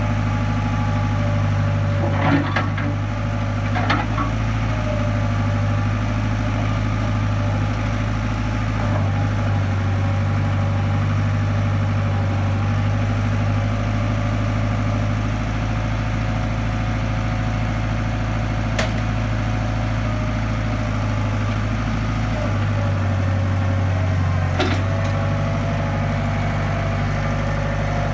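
International Harvester backhoe-loader's diesel engine running steadily, its note shifting a little twice as the load changes, with a few short sharp knocks about two, four, nineteen and twenty-five seconds in.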